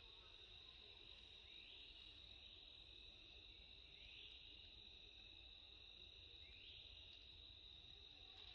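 Faint, steady high-pitched insect drone that swells with a rising sweep three times, about every two and a half seconds.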